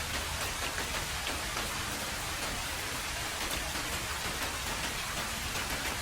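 Heavy rain falling steadily on a road: a dense, even hiss with many small drop patters in it.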